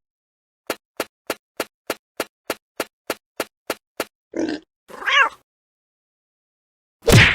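Cartoon sound effects: a run of evenly spaced sharp clicks, about three a second, then a short rasp and a brief cat-like cry with wavering pitch, and a loud hit near the end.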